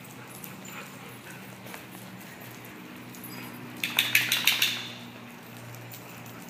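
A dog barking in a quick run of about six sharp barks lasting under a second, about four seconds in, over a low steady hum.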